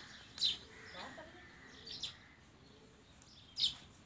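A small bird chirping: short, high single chirps repeated about every second and a half, three times, over a quiet background.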